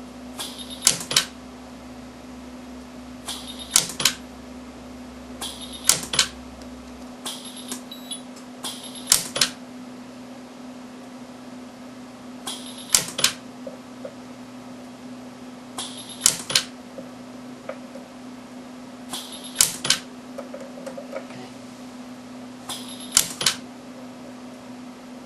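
Micro TIG pulse-arc jewelry welder firing a series of single weld pulses to build up a worn ring prong. Each pulse is a brief hiss and a sharp snap, repeated about every three seconds over a steady low hum.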